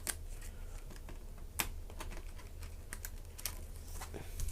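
Scattered small plastic clicks and taps from handling a laptop keyboard while its two flat ribbon cables are unplugged, with one sharper click about a second and a half in.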